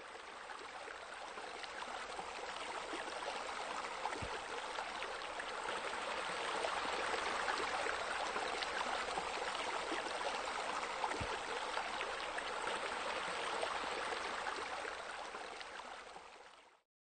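Steady sound of flowing water, fading in at the start and fading out shortly before the end.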